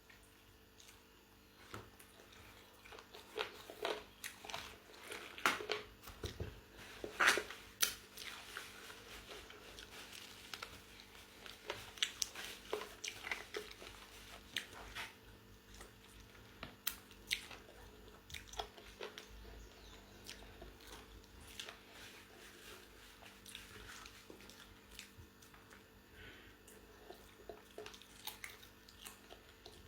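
A person biting and chewing crunchy fried chicken chicharrón, with irregular crunches that come thickest in the first half.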